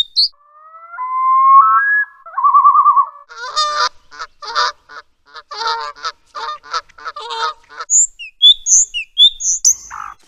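Bird calls in three runs. First a clear whistled call that steps in pitch and ends in a short trill. Then a rapid series of harsh, honking calls, about three a second, for around four seconds. Near the end come brief high chirps.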